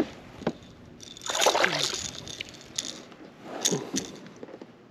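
A hooked bass splashing at the water's surface as it is lifted out beside a kayak, with water sloshing and dripping and a few sharp knocks.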